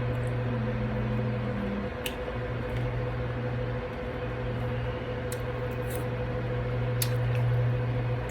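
Quiet chewing and small mouth and food sounds of someone eating, with a few sharp clicks, over a steady low hum in the room.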